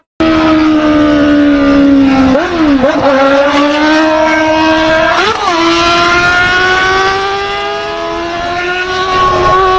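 Motorcycle engine running under load while riding, cutting in abruptly. Its pitch sags and dips about two and a half seconds in, climbs steadily, peaks and drops sharply around five seconds in as it changes gear, then rises slowly again.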